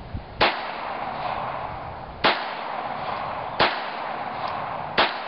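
Smith & Wesson 22A .22 LR semi-automatic pistol firing four single shots, about a second and a half apart, each followed by a short echo.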